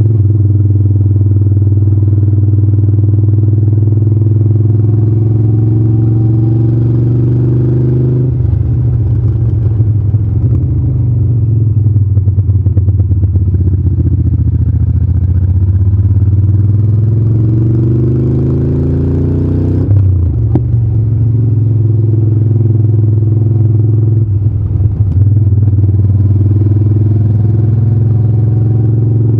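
Moto Guzzi California 1400 Custom's big transverse V-twin running at road speed. The engine note dips about eight seconds in, then rises steadily as the bike pulls, drops suddenly about twenty seconds in as on an upshift, and settles to a steady cruise.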